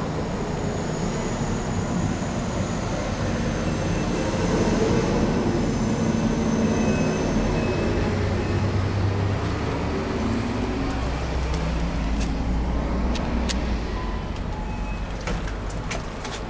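A subway train passing close by: a steady rumble and hiss that swells about four seconds in and fades toward the end, with a few sharp clicks near the end.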